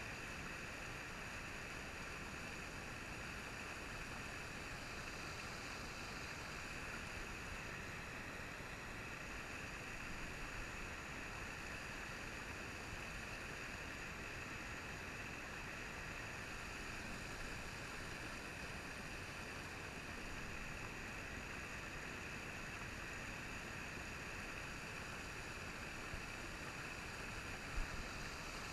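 Steady rush of a river's riffles and rapids. A single brief knock sounds near the end.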